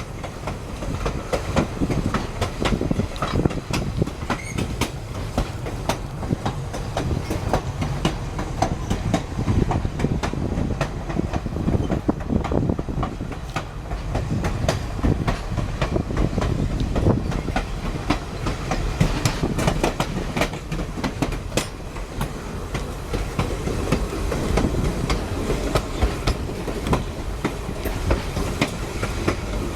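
A passenger train rolling along, heard from the open rear platform of its last car: a steady rumble with irregular clicking and knocking of wheels over rail joints.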